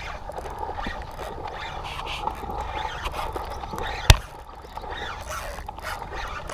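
Spinning reel in use through a cast and retrieve: a steady mechanical whirring, a single sharp loud click about four seconds in, then the reel cranking again as the lure is brought back.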